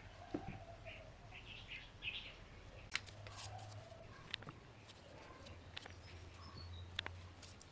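Birds chirping faintly, with a few sharp clicks or taps and a low steady hum underneath.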